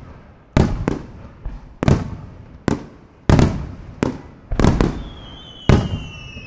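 Aerial firework shells bursting overhead: about nine sharp bangs, roughly one every half second to a second, each trailing off in an echoing rumble. About five seconds in, a falling whistle begins.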